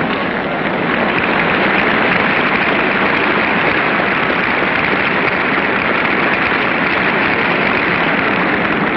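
Theatre audience applauding: dense, steady clapping that swells about a second in and holds.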